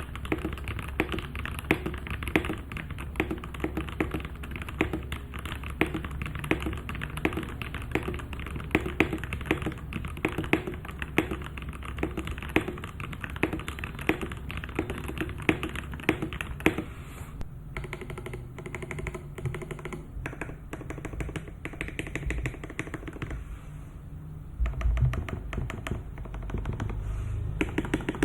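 Fast, continuous typing on a Keydous NJ81 mechanical keyboard with Gateron Yellow Pro linear switches, first on its steel plate; about two-thirds through the typing changes as the brass-plate version takes over.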